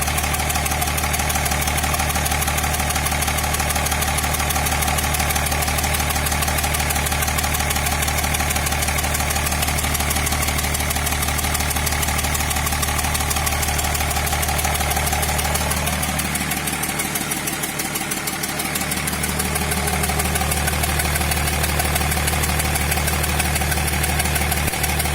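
BMW E39 530d's 3.0-litre M57 straight-six diesel idling with a steady knock, a knock that replacing the sixth cylinder's injector has not cured. The sound sags and thins briefly about two-thirds of the way through, then returns to its steady idle.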